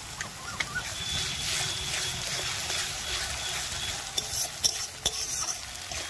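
Ginger-garlic paste and fried onions sizzling in hot oil in a metal kadai, stirred with a metal spatula. The spatula scrapes and knocks sharply against the pan a few times in the second half.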